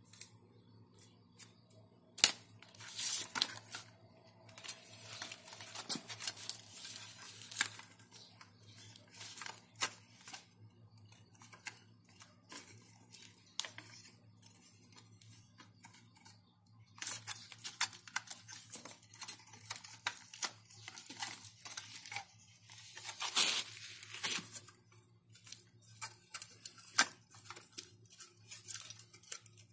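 Handling noise from a computer power supply's sheet-metal case and cooling fan: irregular scrapes, clicks and rustles as fingers work at the fan, with a steady low hum underneath.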